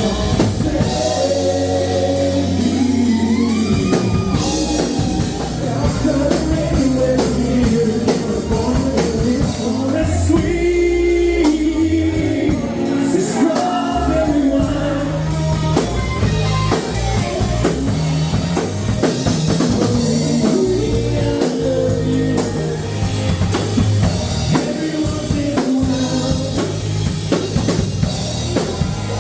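Country-rock band music: a lead singer over a drum kit keeping a steady beat and a bass line.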